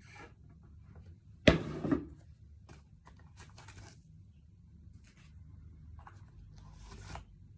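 Handling noises: a loud thump about a second and a half in, followed by scattered scraping, rustling and light clicks of things being moved about at close range.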